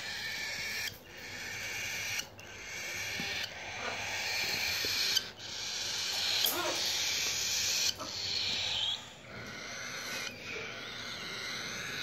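Young cockatiel chicks giving raspy, hissing begging calls: breathy runs one to two seconds long, with short breaks between them.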